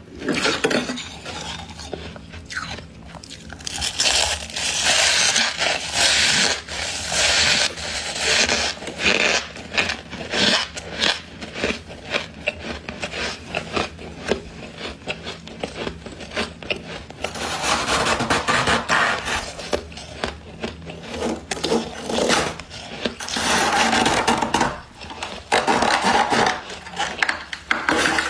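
Thick freezer frost being scraped and scooped up, and crisp frost being bitten and chewed, in dense runs of short crunches that swell louder in stretches.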